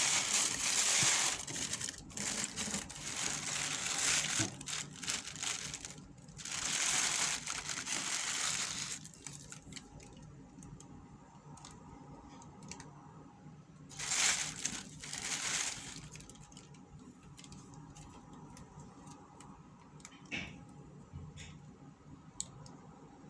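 Packaging paper rustling and crinkling as it is handled, in long bursts through the first nine seconds and again briefly about fourteen seconds in. After that there are only faint handling clicks and taps.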